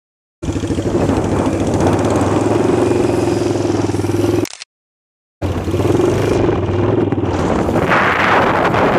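Single-cylinder Yamaha SR motorcycle engines running steadily at road speed, heard from a moving bike with wind noise on the microphone. The sound drops out to silence twice, briefly, at edits between shots.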